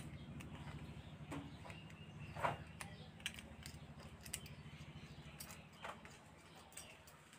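Faint clicks and taps of a metal bar-end hand guard and its fittings being handled and fitted at a scooter's handlebar end, with a sharper click about two and a half seconds in, over a low steady hum.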